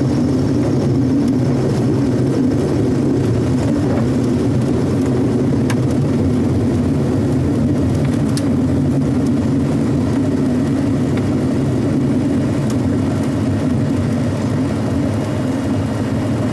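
Cirrus SR22's piston engine and propeller heard from inside the cabin, running steadily at low power as the airplane rolls along the runway after landing.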